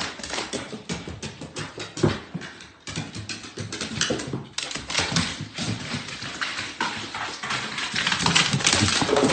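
Dog's claws clicking and scrabbling rapidly and irregularly on a hard floor.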